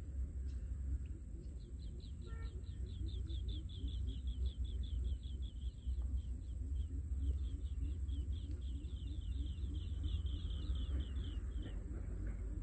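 A bird's rapid trill of short, falling chirps, about eight a second, running for several seconds with a brief break midway. Under it are a low wind rumble on the microphone and a steady faint high whine.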